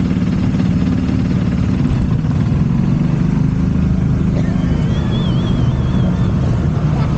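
Golf carts driving off side by side in a race, with a steady low engine hum that shifts slightly in pitch as they get under way.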